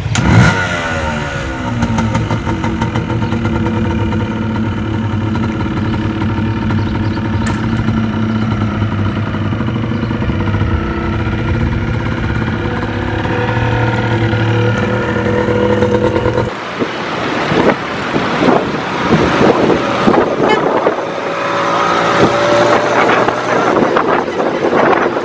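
Trail motorcycle engine starting and revving, then running at a steady, loud idle. After a cut about 16 seconds in, the bike is heard under way on the road, engine running with wind and traffic noise.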